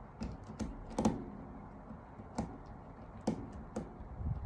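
Light, irregular clicks and taps of a screwdriver working the terminal screws of electrical contactors while wires are connected, about seven in all.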